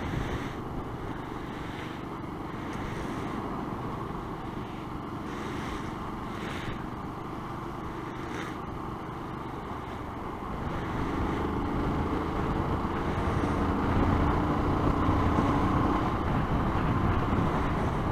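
Motorcycle engine running under way, with wind noise on the helmet microphone. About eleven seconds in it gets louder, a steady engine note as the bike pulls harder.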